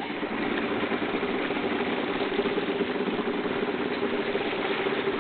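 Motorboat engine running steadily at low speed, a constant hum with water noise under it.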